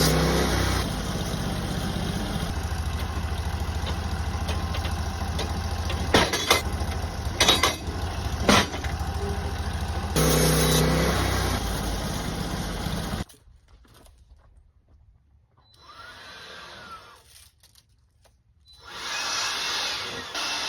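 Engine-driven sawmill running steadily while sawing a ponderosa pine beam, with a few sharp knocks in the middle. The engine sound stops abruptly about two-thirds of the way through, leaving fainter scraping and rubbing sounds, with a louder noisy stretch near the end.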